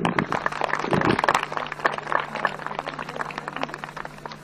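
Audience applauding: a spell of hand clapping that is strongest at first, then thins out and fades over a few seconds.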